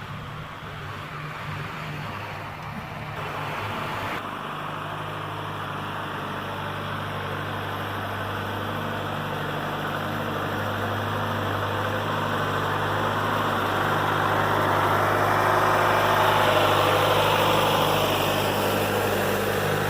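Diesel engine of a John Deere 310B backhoe running steadily, growing louder to a peak about three quarters of the way through, then easing slightly.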